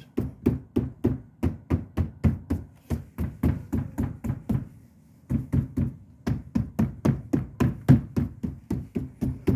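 Rapid knocking by hand on a 2020 Tesla Model 3's rear door panel, about four knocks a second with a short pause about five seconds in, to test for a rattle. The panel gives only dull knocks with no rattle, a sign the fix has held.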